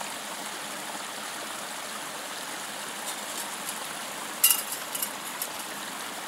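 Steady rushing of a stream. About four and a half seconds in, a metal cooking pot clinks several times as it is set back down onto the canister stove's pot supports.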